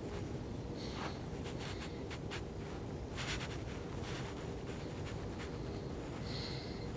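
Faint handling noise: brief scratches and rustles as a glass RCA 6199 photomultiplier tube is held and turned, over a steady low background noise.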